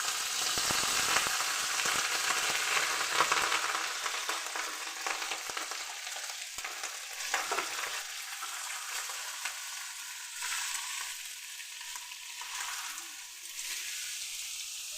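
Food frying in hot fat in a cooking pot, a sizzle that is loudest in the first few seconds and then settles to a quieter, steady sizzle, with a spoon scraping and stirring through it.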